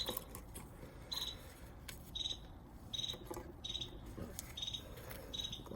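Insect chirping steadily, about one short trilled chirp a second, with a few faint clicks.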